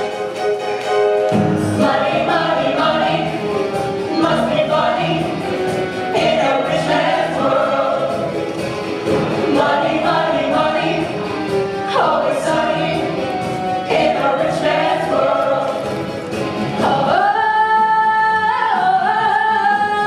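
A stage-musical ensemble sings over a musical accompaniment with a steady beat. In the last few seconds the voices hold long notes, stepping up once.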